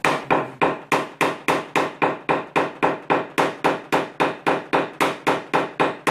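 A small hammer rapidly tapping a knockdown punch against a car's sheet-metal trunk lid, a steady run of sharp metallic knocks at about three and a half a second. This is paintless dent repair tapping down high spots in hail-damaged panel metal.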